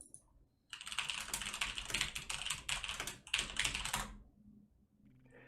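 Fast typing on a computer keyboard: a dense, rapid run of key clicks lasting about three seconds, stopping a little before the end.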